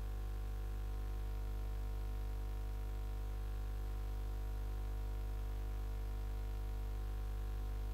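Steady low electrical hum with a faint hiss behind it, unchanging throughout, with no clicks or other events.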